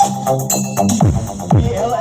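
Loud electronic dance music with a steady beat and repeating synth notes, with two quick downward bass sweeps about a second and a second and a half in.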